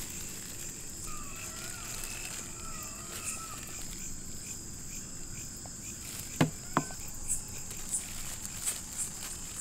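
Crickets chirping in a steady high chirr, with two short sharp clicks about two-thirds of the way through.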